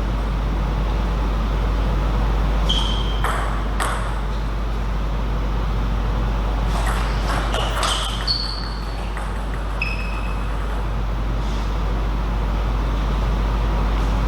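Table tennis ball striking bats and table in a rally: sharp clicks with a brief high ping, three about 3 s in, a quicker cluster around 7 to 8 s, and one more near 10 s. A steady low hum runs underneath.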